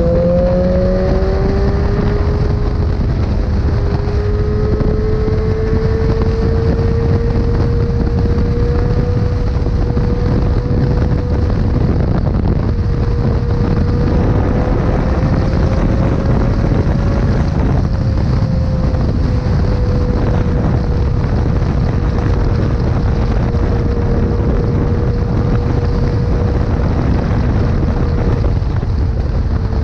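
A sport motorcycle's inline-four engine running at high revs at speed, holding one steady pitch that creeps up a little midway, under heavy wind rush on the microphone. The pitch jumps right at the start, as at a gear change.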